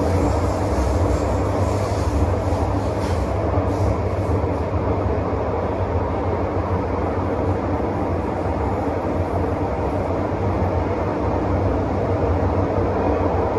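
Steady running rumble of a Hong Kong MTR M-Train (Metro-Cammell EMU) heard from inside the carriage as it travels along the line.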